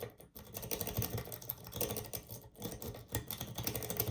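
Rapid, irregular metallic clicking and rattling of a lock pick working the pin tumblers of a Union six-pin oval cylinder, with two brief pauses.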